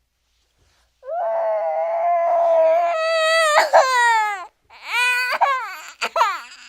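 Cartoon crying sound effect: after about a second of silence, a long wailing cry that climbs and then drops in pitch, followed by shorter sobbing wails that fall in pitch near the end.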